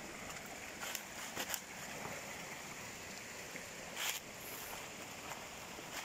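Shallow rocky creek running with a steady rush of water, and a few footsteps on stones and dry leaves about one, one and a half, and four seconds in.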